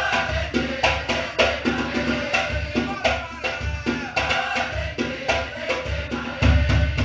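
Batucada samba drum ensemble playing a steady rhythm: deep bass drum beats under sharp, quick higher drum strokes. The bass drums grow heavier near the end.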